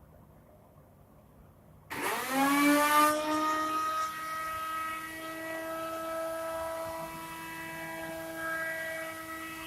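A milling spindle motor starts about two seconds in, its whine rising quickly in pitch as it spins up and then running at a steady high speed.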